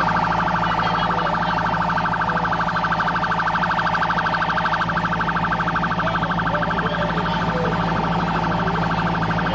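An electronic alarm siren sounding a rapid, even warble at a steady pitch, with a steady low hum beneath it.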